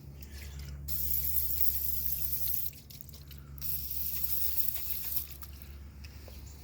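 Aerosol degreaser sprayed onto an electric bike's chain and sprockets in two long hissing bursts, each a second and a half or more, with a steady low hum underneath.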